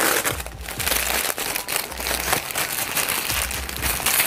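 Packaging crinkling and rustling as a doll's box is unwrapped by hand, with many small crackles and a few low handling bumps.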